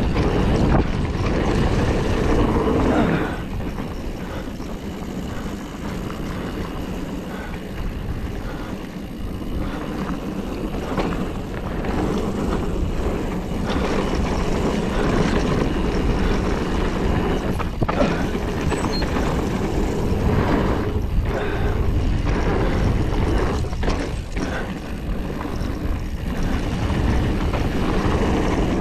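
Mountain bike rolling fast down a dirt and gravel trail: wind rushing over the microphone, tyres on loose dirt, and the bike clattering with sharp knocks over bumps. Louder from about halfway through.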